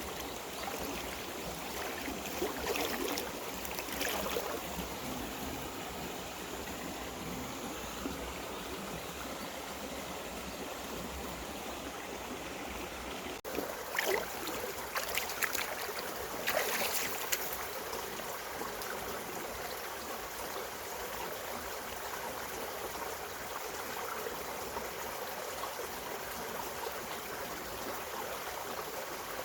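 Clear mountain stream running over rocks with a steady rush and trickle. A few brief, louder splashy sounds come twice: a couple of seconds in, and again about halfway through.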